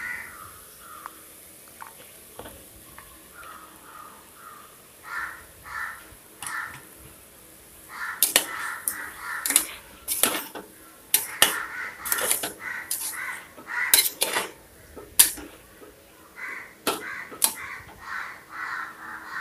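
Crows cawing again and again, and from about eight seconds in, a spoon clinking and scraping against a metal pressure cooker as raw chicken pieces are tipped in and stirred.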